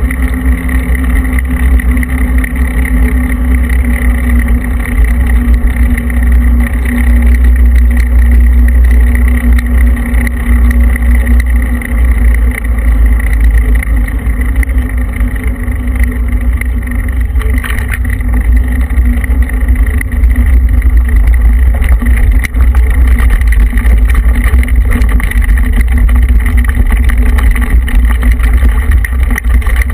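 Wind buffeting the microphone of a moving, vehicle-mounted camera: a loud, continuous low rumble, with rolling noise from the tyres on the road surface.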